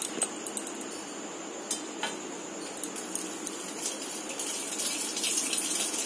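Gas stove burner hissing steadily under an iron kadai, with a few light metal clinks in the first two seconds as a mesh strainer is set into it. From about four and a half seconds a brighter sizzling hiss builds and grows louder.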